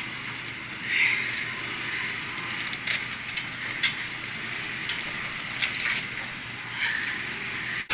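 Scratchy rubbing and scraping of sandpaper on metal pipe fittings as they are cleaned up, with scattered clicks and clinks of metal parts being handled.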